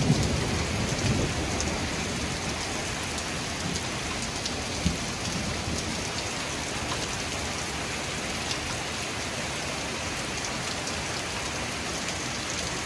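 Heavy thunderstorm rain pouring steadily onto pavement, cars and a flooded street, with the last of a thunder rumble dying away in the first second or two. One sharp tap about five seconds in.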